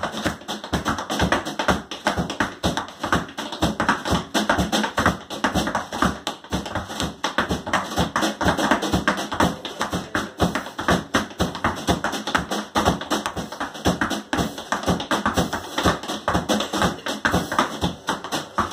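Tap shoes striking a portable tap board in rapid, continuous rhythms of sharp clicks and heel drops: a tap dancer improvising.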